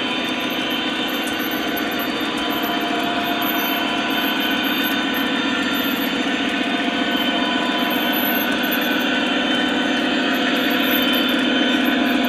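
O scale model freight cars rolling along the track: a steady rumble and clatter of metal wheels on rail, growing a little louder toward the end.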